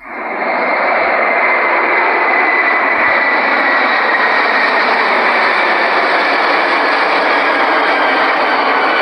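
Aircraft engine noise: a steady rushing roar that cuts in abruptly and builds over the first second, with a faint whine slowly falling in pitch.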